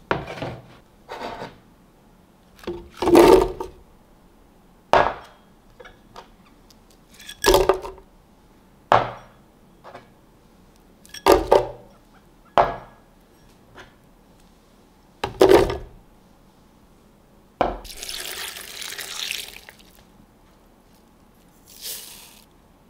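Chopped broccoli and other pieces are dropped into an empty plastic blender jar, making about a dozen separate thuds and clatters one to two seconds apart. Near the end there is a longer hiss as chia seeds are poured in from a spoon.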